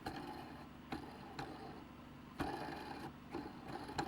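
Faint, scattered clicks and knocks of a small metal soldering fixture being handled and its knurled knobs turned, the loudest knock a little past halfway.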